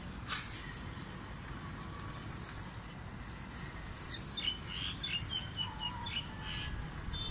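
Small birds chirping outdoors: a run of short, high chirps about four seconds in, over a steady low background rumble. A brief click near the start.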